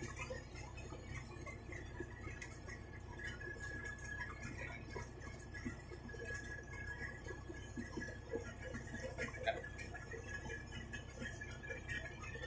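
Fish and shrimp being picked from a pile on deck and tossed into plastic baskets: many small soft wet slaps and ticks, over a steady low hum from the fishing trawler's engine and a faint steady high whine.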